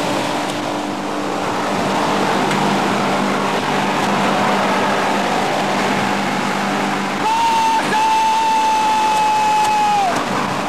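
Dense rushing of wind and water from studio wind machines and water poured over a mock submarine conning tower, with a steady low hum. About seven seconds in, a loud high held tone joins for about three seconds and drops in pitch as it stops.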